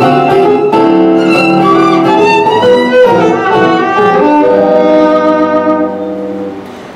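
Violin played with the bow, a melody of held and moving notes that fades away near the end.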